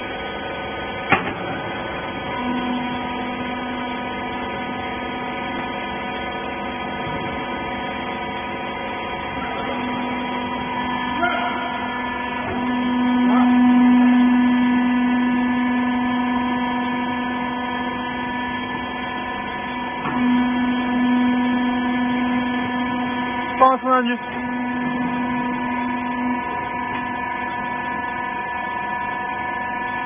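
Hydraulic rags baler running: a steady electric motor and pump hum that swells louder for a few seconds in the middle, with a brief metallic clatter about 24 seconds in.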